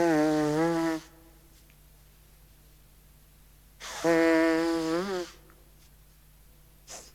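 Two long, wavering, pitched fart sound effects: one trails off about a second in, the other runs from about four to five seconds in. Two short faint puffs follow near the end.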